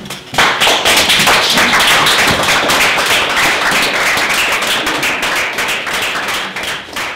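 Audience applauding, breaking out suddenly about half a second in and thinning out near the end.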